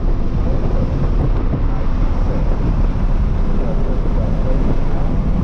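2023 Toyota GR86's 2.4-litre flat-four engine with a GR exhaust, heard from inside the cabin at track speed, with steady tyre and wind noise. The sound is loud and continuous, with the engine's pitch shifting a little as it goes.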